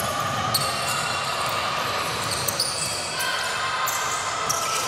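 Basketball game noise: a ball bouncing on the court, with scattered short high squeaks and a background of voices, at a steady level.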